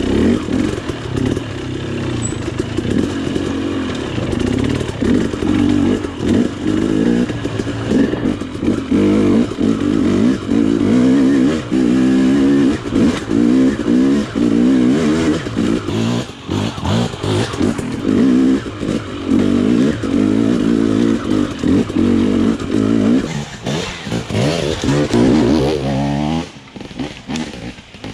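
KTM dirt bike engine being ridden up a trail, its revs rising and falling constantly with the throttle. Near the end the engine goes quieter.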